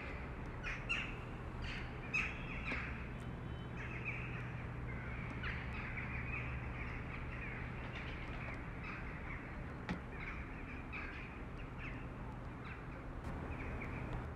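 Birds chirping in the background: many short, high calls scattered throughout, over a low steady hum.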